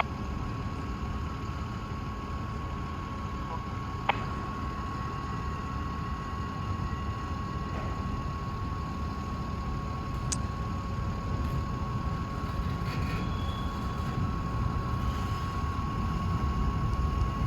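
Low, steady rumble of a distant approaching freight train, slowly growing louder, with a faint steady high tone and two small clicks.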